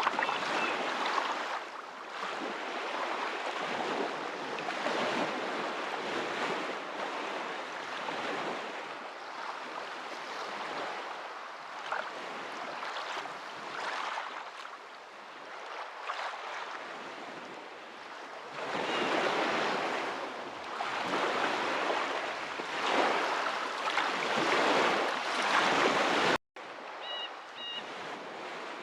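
Rushing water, like small waves washing in, surging and ebbing every second or two. The sound cuts out completely for an instant a little before the end.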